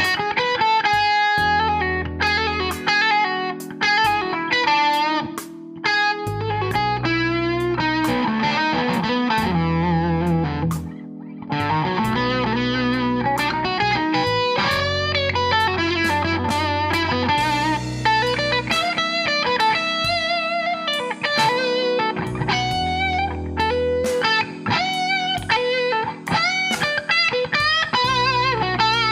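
Electric guitar through a Suhr SSV+ Gold bridge pickup playing a blues lead, with bent notes and vibrato, over sustained low backing notes that change every couple of seconds.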